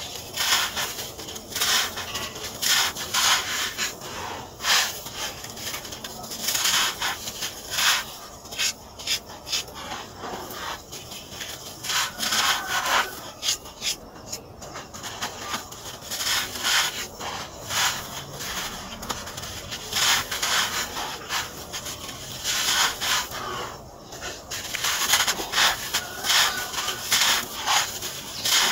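Dry moulded sand-cement lumps crumbling and grating in bare hands, with loose sand rubbed and pressed between the fingers: a run of irregular gritty crunches and rustles.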